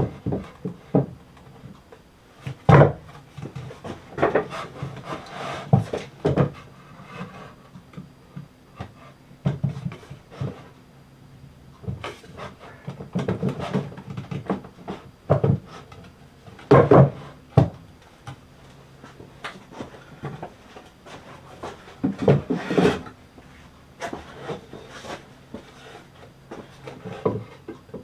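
Wooden boards and workshop items being shifted and handled: irregular knocks and scraping of wood on wood, with quieter gaps between.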